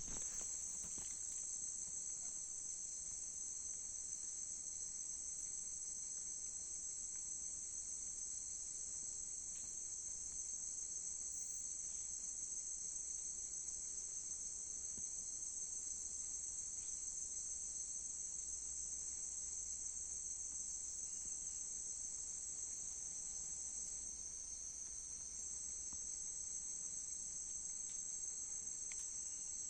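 Steady, high-pitched insect chorus: a continuous shrill drone with no break.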